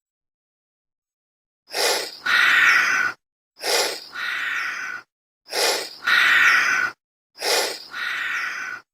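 Breathing sound effect meant as a chameleon's breath: a short gasping intake followed by a longer breathy exhale, repeated four times in an even rhythm, starting about two seconds in.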